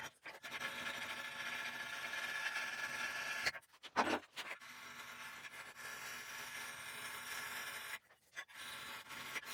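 Steel being filed: steady scraping of a file on the faces of a spring-steel punch, broken by short pauses about three and a half and eight seconds in.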